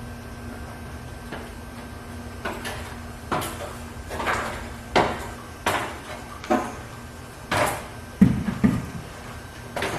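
Irregular knocks and clunks of wood, about a dozen over several seconds, with two heavier low thuds shortly after the loudest clunk.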